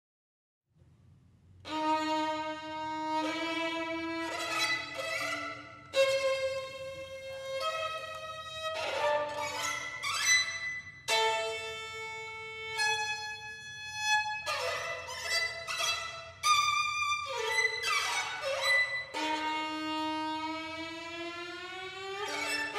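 Violin playing slow bowed notes, each held for a second or so, starting about two seconds in; near the end one note slides slowly upward in pitch.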